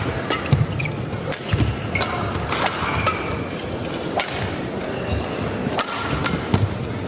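Badminton rally: rackets striking the shuttlecock in sharp cracks about every one to two seconds, with short squeaks of court shoes between the hits.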